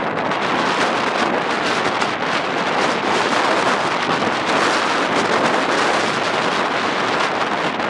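Storm-force wind blowing hard against the microphone, a loud, steady rushing noise with rapid buffeting.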